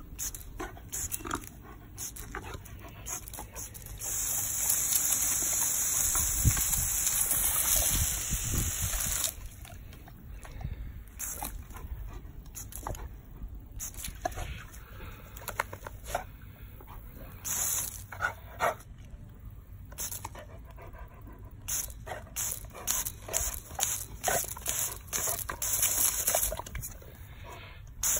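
Garden hose spraying a stream of water at a Rottweiler, which snaps and bites at the spray. A steady hiss of spray runs for about five seconds, starting about four seconds in. Many short, irregular splashes and snaps follow as the dog goes at the water.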